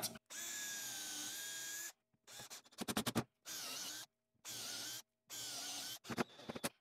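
Cordless drill pre-drilling holes through a timber strip, running in four short bursts of a steady motor whine whose pitch dips briefly as the bit bites in the later runs. A quick series of clicks comes between the first and second runs and again near the end.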